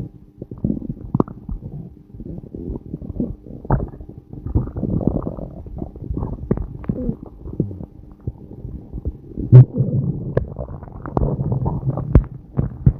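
A person's stomach growling and gurgling: an irregular run of short gurgles over low rumbling, with the loudest gurgle about nine and a half seconds in.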